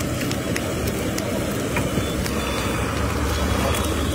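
Steady low rumble of road traffic, with faint scattered light clicks.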